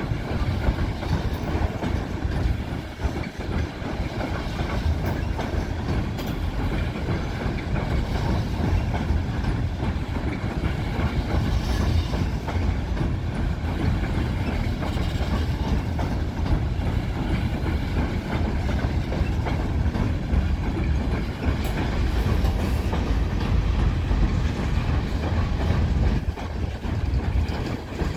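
Tank cars of a Union Pacific oil train rolling slowly across a steel girder bridge as the train backs down. The wheels make a steady, unbroken rolling rumble.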